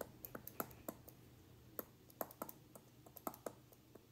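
Stylus tip tapping and clicking against a touchscreen's glass while letters are handwritten: faint, irregular clicks, some in quick clusters.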